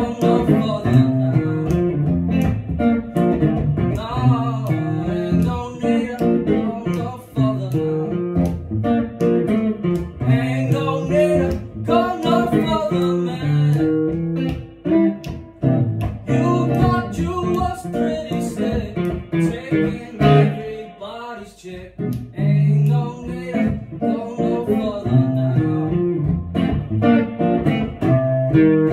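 Electric guitar playing a blues instrumental passage, a run of picked notes and chords.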